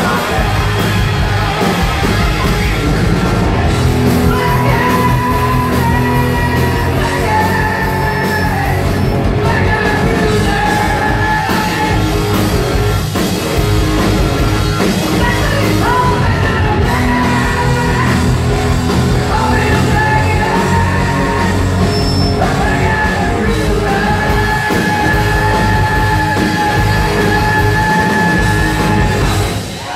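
Hard rock band playing live in a large hall: drums, electric guitars and bass, with shouted lead vocals. The music stops near the end.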